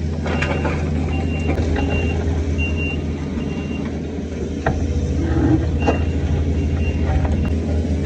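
Kobelco SK55 mini excavator's diesel engine running steadily under work, with a high-pitched backup alarm beeping about once a second, pausing for a couple of seconds midway. A couple of sharp knocks come in the second half.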